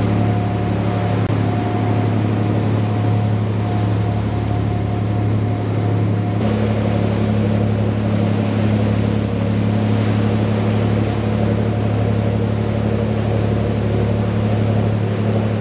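Boat engine running steadily under way, a loud drone over the rush of water from the wake. About six seconds in, the drone's tone shifts slightly.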